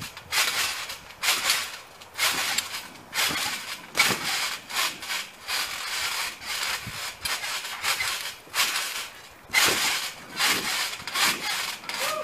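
Wet Orbeez water beads crunching and squishing under bare feet on a trampoline mat: a loud rasping swish about once a second as he bounces and runs through them. By the end he has dropped down and is sliding in the beads.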